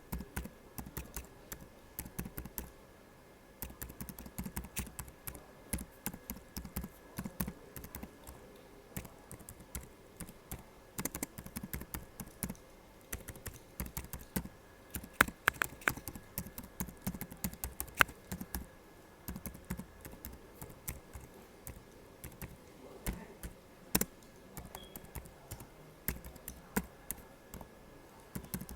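Typing on a laptop keyboard: a steady run of quick, irregular key clicks. A brief pause comes about three seconds in, and a few louder keystrokes stand out now and then.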